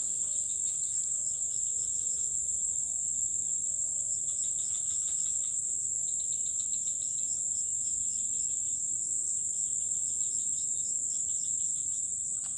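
Insect chorus: a steady, high-pitched trill with a fainter, rapid pulsing chirp beneath it.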